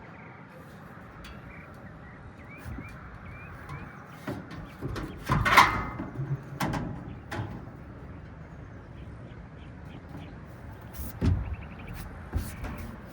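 Sheet-metal clanks and knocks as the condenser fan motor and blade are handled and set into the package unit's housing. A cluster of knocks comes about four to seven seconds in, the loudest a ringing metal clank, followed by another sharp knock around eleven seconds.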